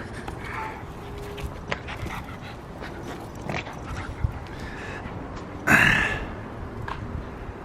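A dog whimpering and yipping while playing, with scattered small clicks and scuffles and one louder, half-second yelp about six seconds in.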